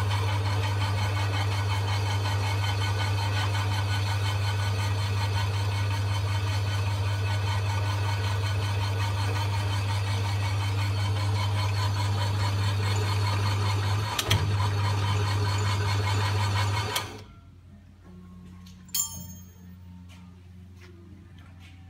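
Myford 7-inch lathe running under power: a steady electric-motor hum with the whirr of the drive, and a sharp click a little after halfway. About three-quarters of the way through it is switched off and the sound dies away within a second, leaving only a faint background and a single click.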